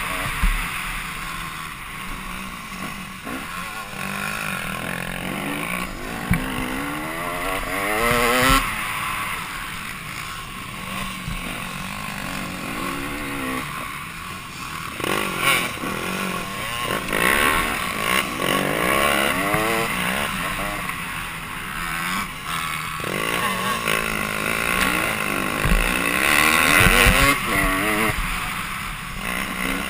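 Dirt bike engine heard from the rider's helmet camera, revving up and dropping back again and again as it accelerates and shifts across rough ground, with a steady rush of wind noise over it.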